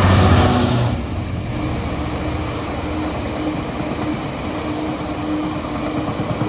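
Diesel-hauled freight train passing: the locomotive's engine is loudest in the first second, then the wagons roll past with a steady rumble.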